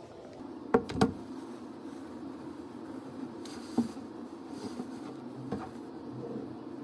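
Handling things at a desk: two sharp knocks about a second in, then a brief rustle of a padded jacket and a couple of lighter knocks, over a steady low hum.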